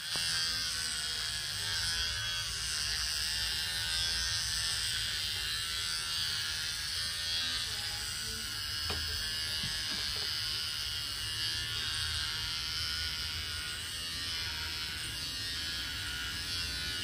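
Electric hair clippers buzzing steadily as they shave a German Shepherd's coat.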